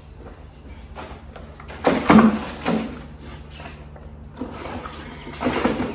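Plastic packaging crinkling and rustling in the hands, around vacuum-sealed frozen steaks. It comes in two spells, about two seconds in and again near the end.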